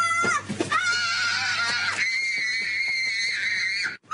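A young boy screaming in a tantrum: long high-pitched screams broken by short gasps for breath, cut off sharply near the end.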